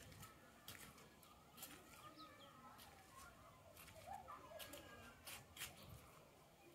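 Faint outdoor ambience: distant birds calling in short chirps, with a few sharp clicks.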